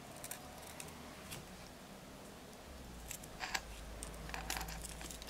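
Lace bobbins clicking lightly against each other as they are handled to tension the threads: a few small clicks, most of them between about three and four and a half seconds in.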